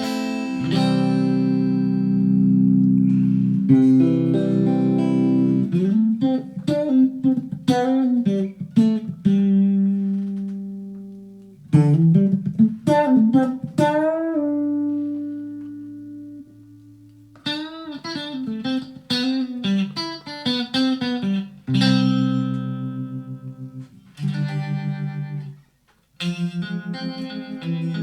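Electric guitar played through a Blackstar ID:Core 40 combo amp: ringing chords and quick single-note phrases with bent notes, broken by a few short pauses.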